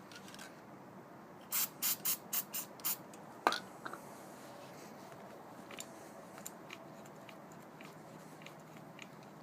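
Aerosol can of white lithium grease spraying in six quick short squirts into a hood latch's joints, then a single sharp click and a few faint ticks.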